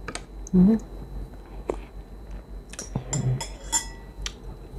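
Close-up mouth sounds of a person eating rice noodles in coconut curry: a string of short wet clicks and smacks of chewing, with two brief hums, the louder one about half a second in.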